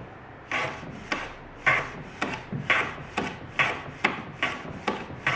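Hand plane run on its side along a mitre shooting board, taking really thin shavings off the mitred end of a piece of wood. Quick repeated strokes, about two a second, each starting sharply and trailing off.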